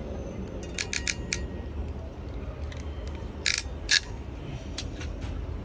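Sharp clicks of small hand tools and plastic parts being handled while preparing a network cable: a quick run of four clicks about a second in and two louder clacks around three and a half seconds in.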